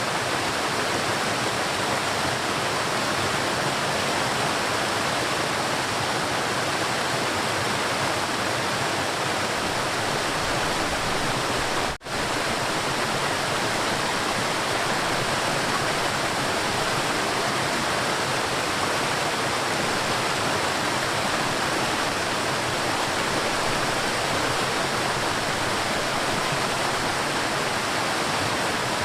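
River water rushing steadily, with a split-second dropout about twelve seconds in.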